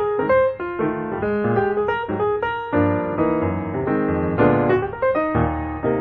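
Background piano music: a steady run of single notes and chords, each struck and left to ring.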